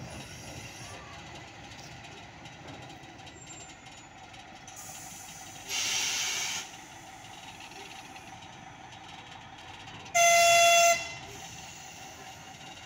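The TU10-025 narrow-gauge diesel locomotive runs with a steady engine hum. About six seconds in there is a one-second hiss of air, and near the ten-second mark the locomotive sounds one short, loud horn blast.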